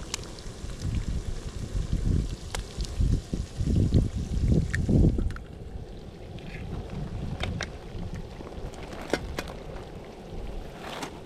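Wind buffeting the microphone in low gusts, easing after about five seconds to a softer steady rush, with a few light sharp clicks.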